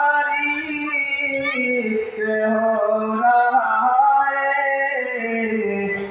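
A man singing a naat, an Urdu devotional poem in praise of the Prophet, unaccompanied into a microphone, drawing out long held notes that bend and slide in pitch.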